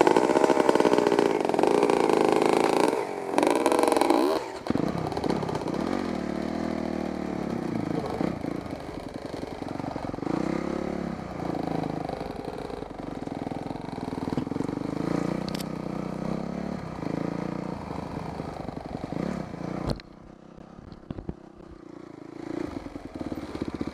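Dirt bike engine revving hard with rising and falling pitch for the first few seconds, then running at lower, changing revs as the bike rides the trail. About twenty seconds in, the sound drops suddenly to a much quieter engine.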